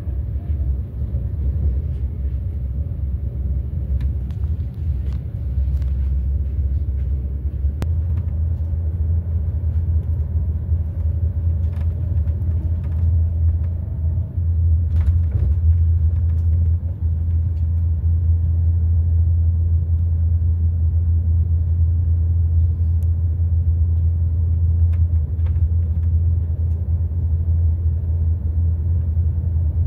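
ICE high-speed train's running noise heard from inside the passenger coach: a steady low rumble of the ride at speed, growing a little louder about eight seconds in, with a few faint clicks.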